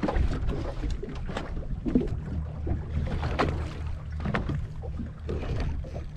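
Water lapping and slapping irregularly against the hull of a small fishing boat, over a steady low rumble.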